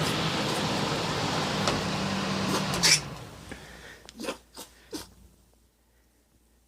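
A small pet sneezing: a sharp sneeze about three seconds in, then three weaker sneezes or snorts over the next two seconds. For the first three seconds a steady whooshing noise with a low hum runs under it, then stops.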